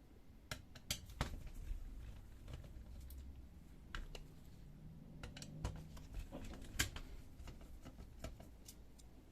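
Screws being unscrewed from a laser printer's fuser unit: irregular light clicks and taps of the screwdriver and the plastic housing being handled, over a low rumble.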